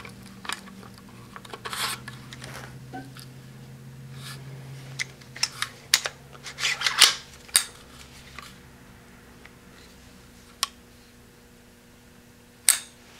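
Sharp metallic clicks and clacks from an AR-15 rifle (Sig Sauer M400) being handled, with its magazine out. The clicks come in a quick cluster about five to eight seconds in, then two single clicks near the end.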